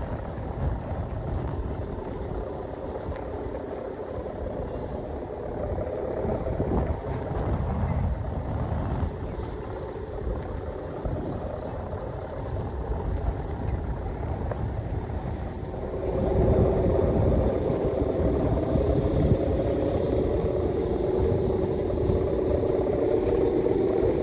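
Strong wind buffeting the microphone with a continuous low rumble; about two-thirds of the way through it grows louder and a steady droning hum comes in on top.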